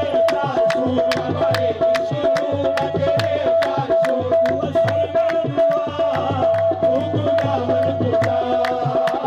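Qawwali music with a fast, steady beat: sharp claps or drum strikes about three a second over pulsing low drum notes, a held tone that breaks in time with the rhythm, and voices.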